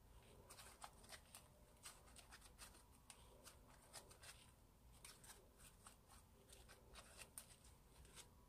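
Slime being kneaded and squeezed by hand, making faint, irregular crackles and small sticky pops.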